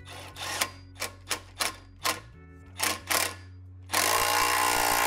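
About eight sharp knocks on metal, then, about four seconds in, an impact wrench starts hammering continuously, used to beat the tailpipe into the muffler.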